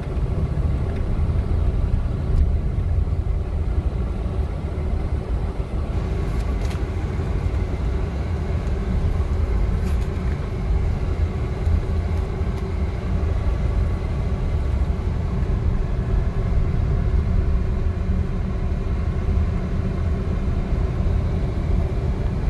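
Steady low rumble of a car's engine and tyres heard from inside the cabin while driving, with a couple of faint ticks partway through.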